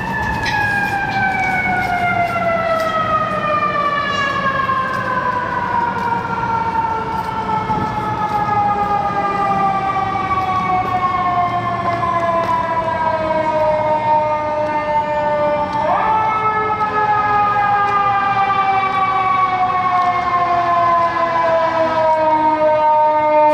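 Fire engine's mechanical siren winding down in one long, slow falling wail. About two-thirds of the way through it is spun back up sharply and starts to fall again, over the low rumble of the truck's engine.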